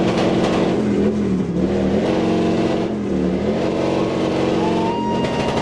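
Motorcycle engine held at high revs in a burnout, its pitch rising and falling as the rear tyre spins in place. A steady high-pitched tone starts near the end.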